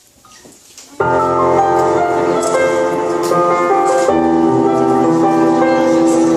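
Background music starts abruptly about a second in: a piano or keyboard tune with steady sustained notes, after a quieter first second.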